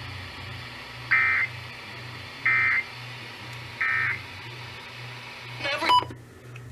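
NOAA Weather Radio SAME end-of-message data bursts: three short, buzzy digital squawks about 1.3 seconds apart, marking the end of the warning broadcast, over a steady radio hum and hiss. Near the end a brief rising chirp and tone are heard.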